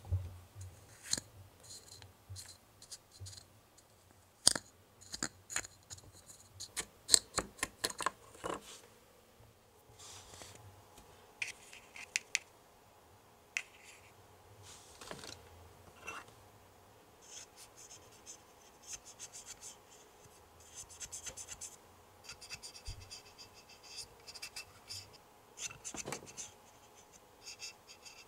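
Small plastic toy-kitchen parts handled with scattered sharp clicks and taps, then a cotton swab scratching and rubbing in short repeated strokes inside the holes of a small plastic mold, oiling it.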